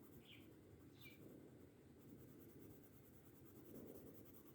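Faint scratching of a coloured pencil shading on paper, barely above near silence.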